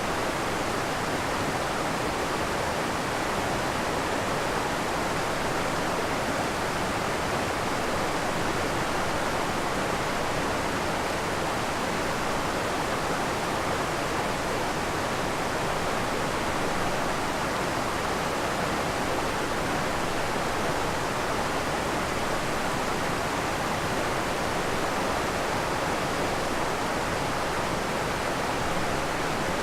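Waterfall on a forest creek, a steady rush of falling water.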